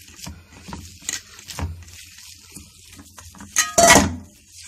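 Hands mixing raw chicken mince in a stainless steel bowl: irregular soft knocks and scrapes against the steel, then a loud, ringing clank of the bowl nearly four seconds in.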